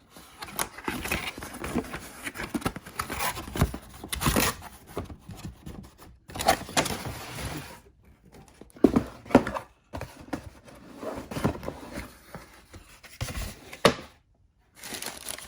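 A cardboard shoe box and its paper wrapping being handled and opened: knocks, thunks and paper rustling and crinkling in several spells, with short pauses between them.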